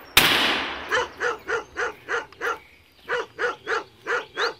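A single rifle shot cracks just after the start and echoes away. About a second later a hunting dog starts barking in a steady rhythm, roughly three to four barks a second, with a short break midway.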